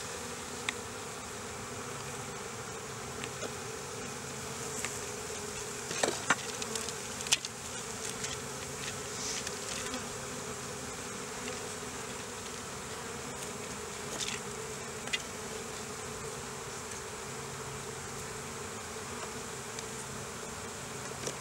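Honey bees buzzing steadily around an open hive and a frame covered in bees. A few short knocks and clicks come through, the loudest about six to seven seconds in.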